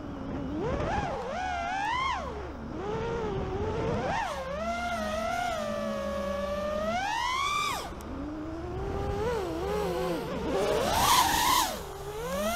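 FPV freestyle quadcopter's brushless motors and propellers whining, the pitch swooping up and down as the throttle changes through the manoeuvres. The whine cuts off sharply just before eight seconds in, on a throttle chop, then builds again. A burst of rushing noise comes near the end.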